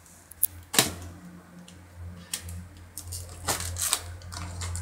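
Plastic snack-cake wrappers crinkling and crackling as a baby handles them, in a few sharp bursts, the loudest about a second in. A steady low hum runs underneath.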